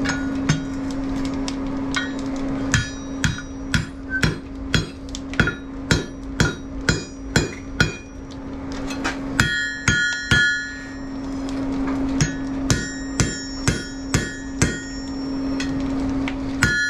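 Hand hammer striking a red-hot iron bar on the anvil horn, forging it into a wall hook: runs of blows about two a second, broken by short pauses, with the anvil and bar ringing after the strikes. A steady low hum runs underneath.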